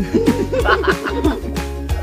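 Background music with a steady beat. A person laughs briefly near the start.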